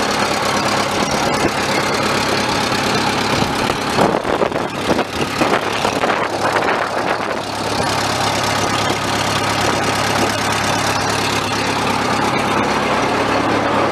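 1970 Bobcat 610 skid steer's carbureted four-cylinder gas engine idling steadily after a cold start from three weeks of sitting, with an uneven, rougher stretch around four to seven seconds in.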